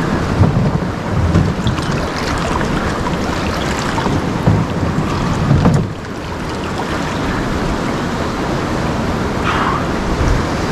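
Fast river water rushing through a rapid, a steady loud rush. Wind or handling buffets the microphone with low rumbles during the first half, and the sound turns steadier after about six seconds.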